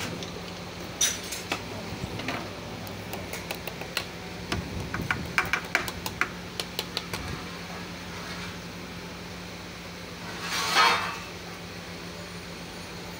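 Light metal clicks and clinks as a geared steel shaft is worked by hand into a bore in a bare engine block, a rapid run of taps through the first seven seconds or so. A brief louder rasp comes about ten and a half seconds in, over a steady low electric fan hum.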